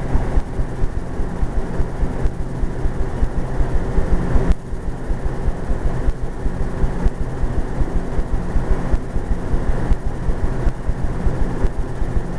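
Refrigerator-freezer running with a loud, steady, rough mechanical hum and a rapid rattle underneath, an awful sound that the owner takes for a fault in the compressor or Freon unit.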